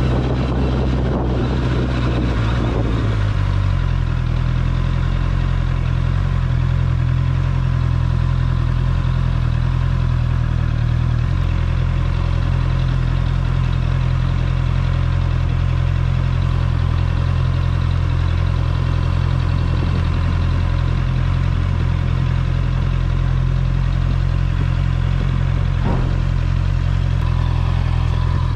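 Honda CBR650R's inline-four engine running steadily at low revs, its note shifting slightly about three seconds in and again about eleven seconds in.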